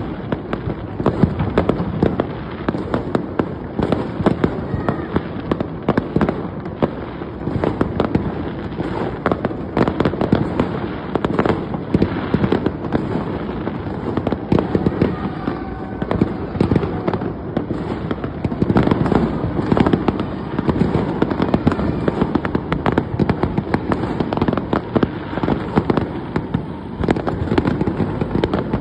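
Fireworks exploding without a break: a dense, continuous run of bangs and crackling, many overlapping every second.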